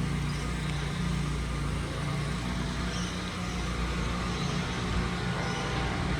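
Steady road traffic noise: a low rumble of vehicle engines and tyres from nearby city streets, with no single standout event.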